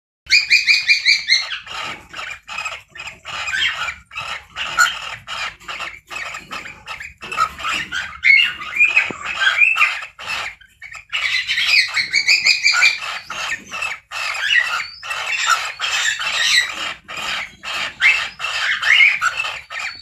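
Cockatiels chattering and chirping in fast runs of short, shrill calls while a pair is mating. It opens with a quick, even string of notes and pauses briefly about halfway through.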